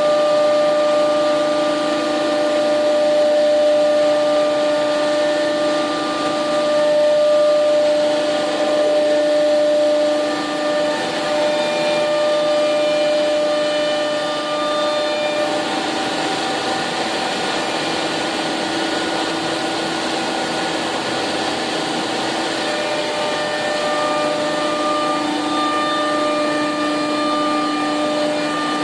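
SCM Accord 20 CNC router's electrospindle running, a steady whine of several held tones over a rushing hiss, the pitch mix shifting slightly partway through.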